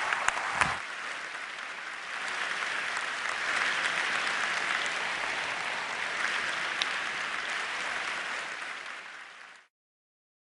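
Large audience applauding in an auditorium. The applause swells about two seconds in and cuts off suddenly near the end.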